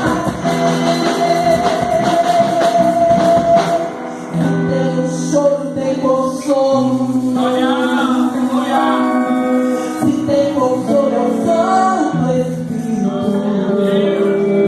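Pentecostal gospel worship song: a singing voice with band accompaniment, with long held notes that slide up and down in pitch.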